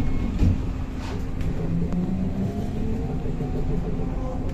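BKM 321 trolleybus under way, heard from inside the passenger cabin. There is a steady low rumble from the running gear on the road, and a thump about half a second in. The electric traction drive gives a faint whine that rises in pitch as the trolleybus picks up speed.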